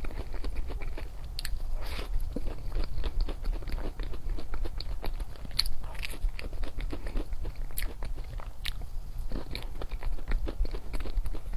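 Close-miked mouth sounds of eating chocolate: irregular crisp crunches and clicks as it is bitten and chewed.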